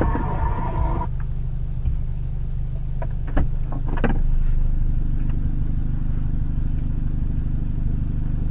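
Steady low rumble of a car's engine and road noise heard from inside the cabin, with a hiss and a held tone that cut off about a second in and a few faint clicks.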